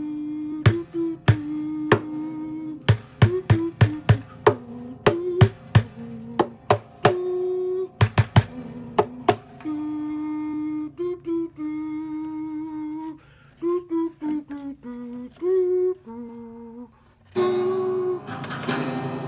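A man humming a slow melody in long held notes, with sharp knocks keeping a rhythm under it for the first half. About seventeen seconds in, an acoustic guitar is strummed and plucked.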